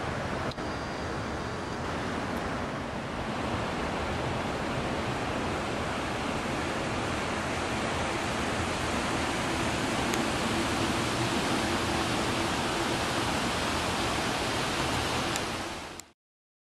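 Steady outdoor rushing noise with no distinct events, which cuts off abruptly near the end.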